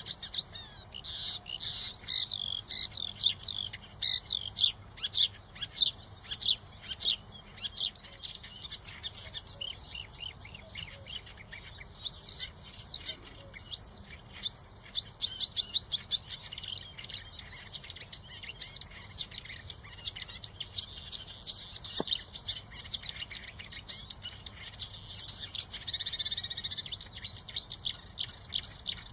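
Songbird singing: a continuous run of rapid, varied high chirps, whistled glides and trills, with a denser buzzy trill near the end.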